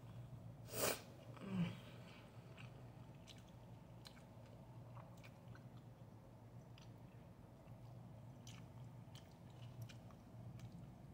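A person chewing a mouthful of fried rice, with faint scattered mouth clicks. About a second in come two short, louder noises close together.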